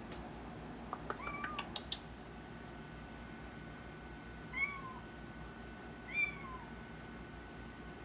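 A cat meowing from inside a bag: three short, high meows, each falling in pitch. There are a few light clicks around the first one.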